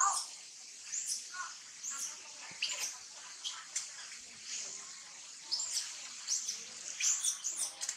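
Short, high-pitched animal chirps repeating every second or so, coming faster in a cluster near the end.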